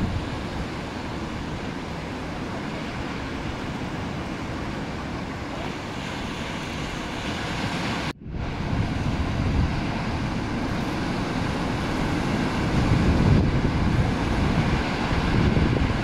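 Ocean surf breaking and washing, with wind rumbling on the microphone. The sound drops out for an instant about halfway through, then comes back louder.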